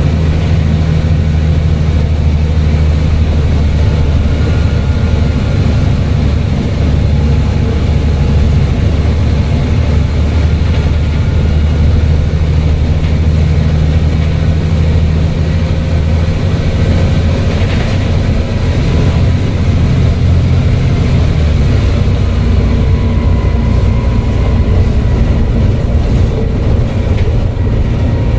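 Volvo B7TL double-decker bus's diesel engine running steadily under way, with a faint turbo whistle above the engine note. The engine note shifts about sixteen seconds in.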